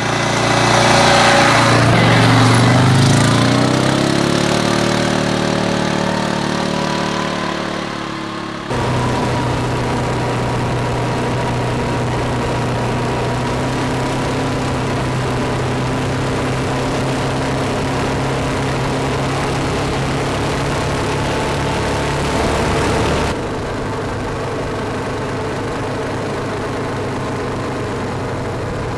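ATV engine running steadily as the quad is ridden along a gravel trail, its pitch falling over the first few seconds as it slows. The sound changes abruptly twice.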